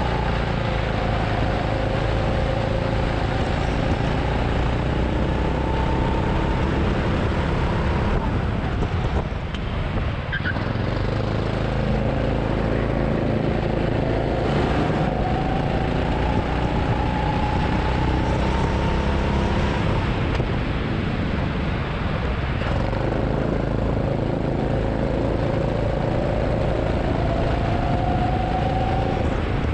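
Go-kart engine heard from the driver's seat at racing speed. Its revs climb steadily along each straight and fall away into the corners, three climbs in all, over a constant rush of road and wind noise.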